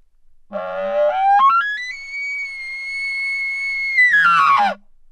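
A man-made elk bugle call blown through a bugle tube, imitating a bull elk. A low note about half a second in climbs in steps to a high, steady whistle held for about two seconds, then drops back down and stops sharply.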